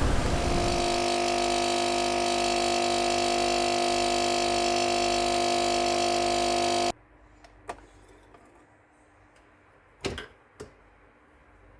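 A small electric motor runs with a steady hum and whir, then switches off abruptly about seven seconds in. After it, three short clicks or knocks.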